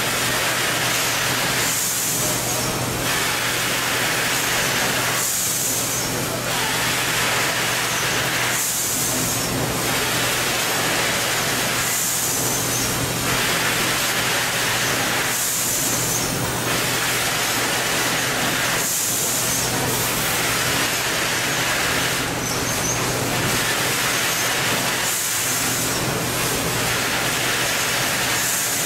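Automatic woven-bag packing line running: a steady machine hum under a hissing noise that swells about every three and a half seconds in a regular cycle.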